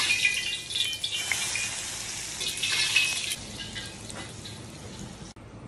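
Hot oil sizzling and crackling on minced garlic and chili flakes just after it is poured over them; the sizzle is loudest for about three seconds, then dies down.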